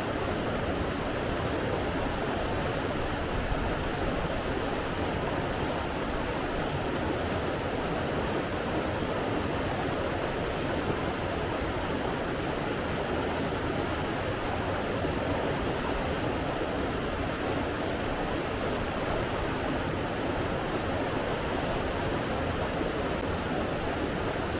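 Steady rushing of running water, an even unbroken sound with no surges.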